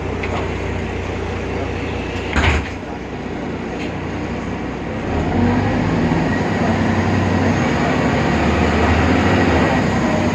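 BredaMenarini Avancity Plus city bus running, its Deutz diesel engine giving a steady low hum. A single sharp clunk comes about two and a half seconds in, and from about five seconds the engine hum grows louder and stays up.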